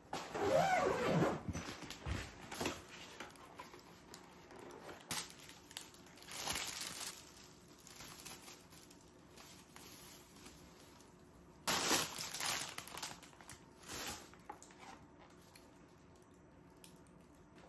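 Plastic grocery bags and packaging crinkling and rustling in irregular bursts as groceries are lifted out of an insulated delivery bag. The loudest rustles come at the start and about twelve seconds in.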